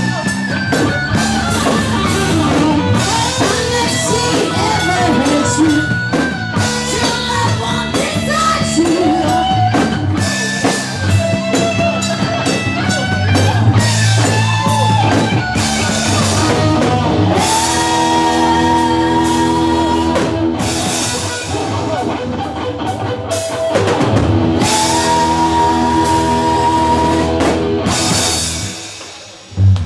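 Live rock band playing electric guitar, bass guitar and drum kit, with singing. Two long held high notes ring out in the second half, and the song ends just before the end with one last loud hit.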